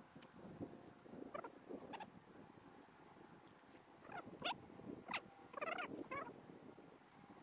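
Faint animal calls: several short calls between about one and six seconds in, over a high chirping that runs throughout.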